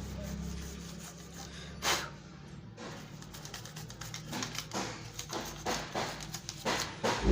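A knock about two seconds in, then a run of short scratchy strokes, a few a second: dust being brushed off an amplifier circuit board.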